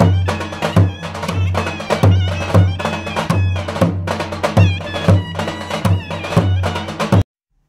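Background music in a traditional folk style: a steady drum beat under a bending, ornamented melody. It cuts off abruptly near the end.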